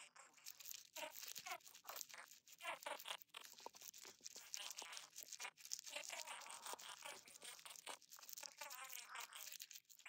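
Squishy bug sound effect: soft, irregular wet crunching and crackling, a dense run of small clicks and squelches.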